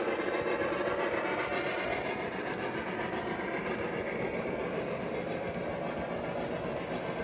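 Lionel O gauge freight train running past on three-rail track, a steady noise of the cars' wheels rolling on the rails that eases a little after about two seconds.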